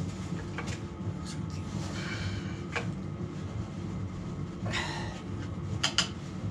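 Steady low hum of a Polaris heater running, with scattered light knocks and scrapes of parts being handled, and two sharp clicks in quick succession near the end.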